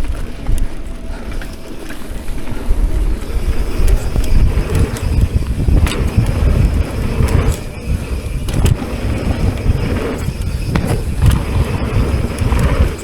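Wind buffeting a ride-mounted camera's microphone as a mountain bike rolls fast down a dirt trail. The bike rattles over rough ground, with several sharp knocks from bumps and rocks.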